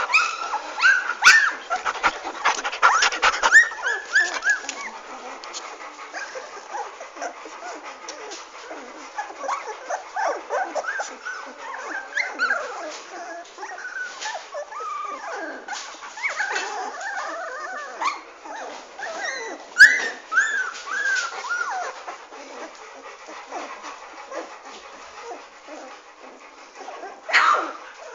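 German Shepherd–Labrador mix puppies whimpering and yipping, many short high squeaky cries overlapping on and off, with a sharp knock about two-thirds of the way through.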